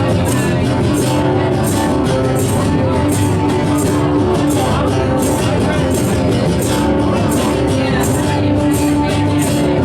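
Rock band playing loudly, with no words sung, over a steady beat of cymbal hits.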